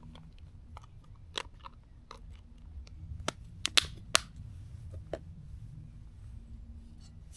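Camping kit being handled: irregular clicks and light knocks, with a cluster of sharper ones about three to four seconds in, over a low rumble.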